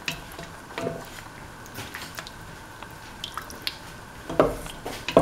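A spoon stirring pieces of duck meat and tomato in freshly added water in a pan: irregular wet sloshing and squelching, with a few sharp clicks of the spoon against the pan.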